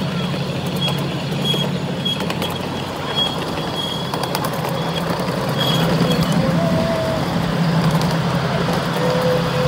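Ride-on miniature train running along its track, heard from a passenger car: a steady low engine drone with the running noise of the cars.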